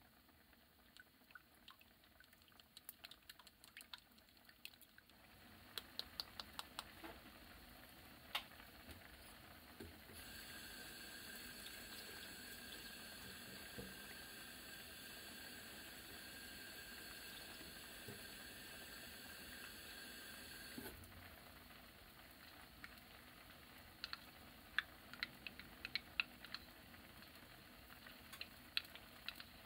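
Broth with pork, shimeji mushrooms and tofu simmering in a frying pan: faint bubbling with small pops and ticks, a steadier hiss through the middle. Near the end, light clicks of a plastic measuring spoon in a small bowl of potato starch.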